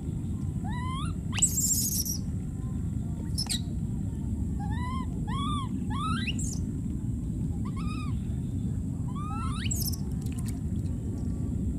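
Baby monkey crying: about six short, high-pitched whistling calls that arch or rise in pitch, over a steady low rumbling noise, with a brief loud noisy burst about a second and a half in.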